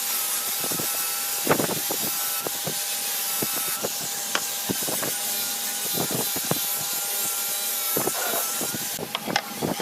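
Wood being worked by hand: rubbing and scraping on wood, with irregular knocks and taps, over a steady faint whine.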